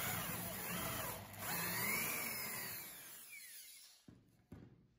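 Electric drill boring out the centre hole of a small metal stop pin held in pliers, enlarging it to take an M6 bolt. The drill runs with a short break about a second in, then its whine drops in pitch as it spins down at about three and a half seconds, followed by two light knocks.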